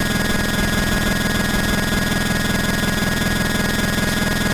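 Several square-wave oscillators from a DIY 40106 CMOS oscillator bank, the core of an XORbell percussion module, sounding together as a steady, rough electronic buzz with a high whine on top.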